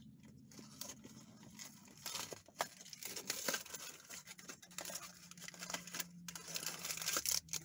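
Foil blind-bag wrapper of a Minecraft mini-figure being torn open and crinkled by hand: irregular crackling and tearing that grows busier after the first couple of seconds.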